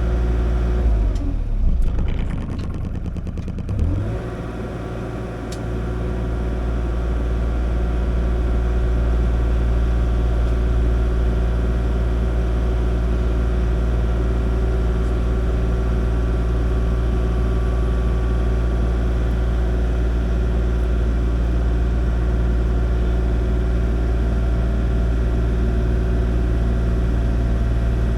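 Kubota KX040 mini excavator's diesel engine running steadily. About one to four seconds in, the engine note wavers and drops, then picks back up and settles into a steady run.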